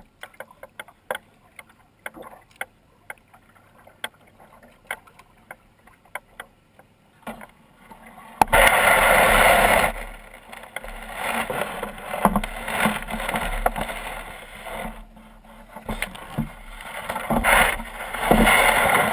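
Light knocks and clicks against a canoe's hull at the water's edge. About eight seconds in, a loud, sudden scraping starts as the canoe is dragged up onto the gravel shore, followed by more scraping and bumps as the canoe is handled.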